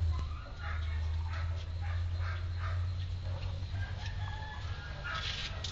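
Chickens clucking in short repeated calls, with a rooster crowing in a long held call in the second half, over a steady low hum.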